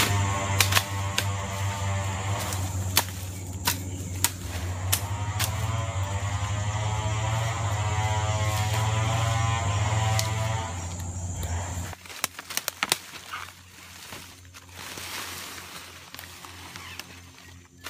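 Background music with a steady bass and a melodic line, cutting off sharply about two-thirds of the way in; after it, quieter outdoor sound with scattered sharp knocks.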